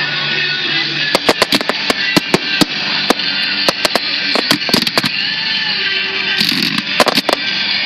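Fireworks finale: aerial shells bursting in quick, irregular bangs, several a second, with crackling, over background music played for the display.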